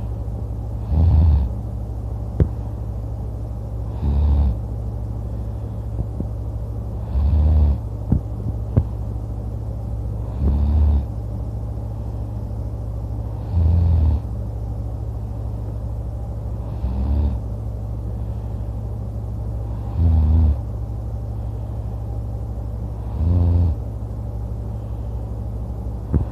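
A sleeping person snoring pretty loud, one snore about every three seconds, eight in all, over a steady low hum.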